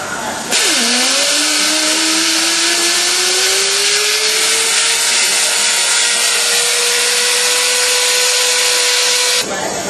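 RAD 50 pneumatic torque wrench running on a crawler track-shoe nut: a loud air hiss with a motor whine. The whine drops sharply just after it starts, then climbs slowly over a few seconds and holds steady until it stops shortly before the end.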